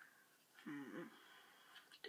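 A person's faint, brief murmur, starting a little over half a second in; otherwise near silence.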